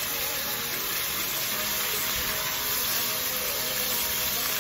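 Liver slices sizzling steadily in hot oil in a frying pan.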